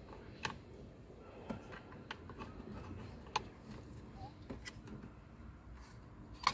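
Small, sharp plastic clicks and handling noises from wiring plugs being worked and connected at the blower resistor: about half a dozen irregular clicks over a faint background.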